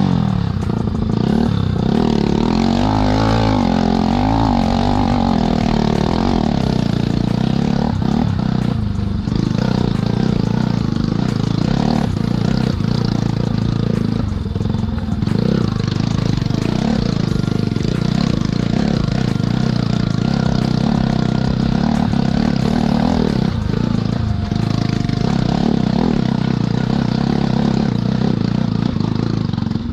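Bajaj Pulsar NS200's single-cylinder engine pulling the motorcycle along a rocky trail. Its pitch rises and falls several times in the first few seconds, then it runs steadily.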